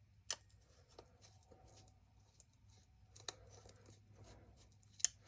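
A few faint, sharp metallic clicks of hand tools and small carburetor parts being handled, the loudest near the end, with near quiet between them.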